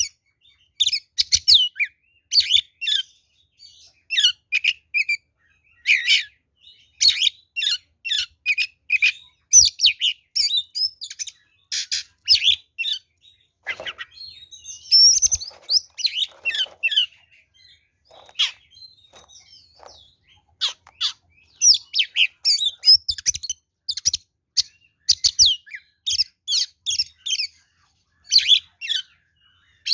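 Oriental magpie-robin (kacer) singing its loud fighting-mood song: fast phrases of high, sweeping whistles and chattering notes with short pauses between them. Some harsher, lower chattering comes about halfway through.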